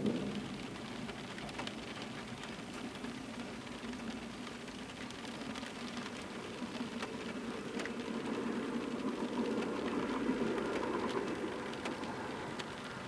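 Rain falling in a thunderstorm, a steady hiss with scattered drop ticks. The tail of a thunder roll fades right at the start, and a low rumble swells about eight seconds in, then dies away near the end.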